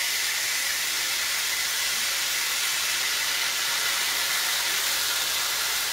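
Chuck roast sizzling steadily in hot olive oil in a Dutch oven as teriyaki sauce is poured over it: an even hiss with no breaks.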